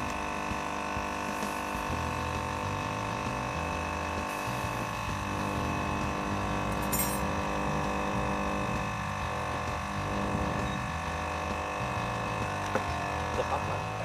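Induction heater humming steadily with several steady tones, with a short high hiss about seven seconds in.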